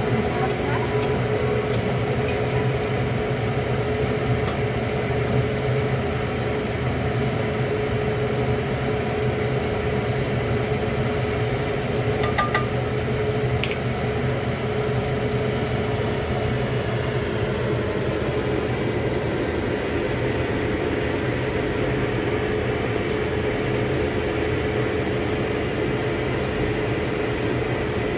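A steady mechanical hum with a constant mid-pitched tone, like a small motor or fan running, with a couple of faint clicks about twelve seconds in.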